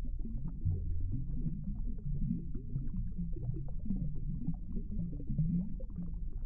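Underwater ambience picked up by a submerged camera: a muffled low rumble and gurgle of water, with scattered faint clicks.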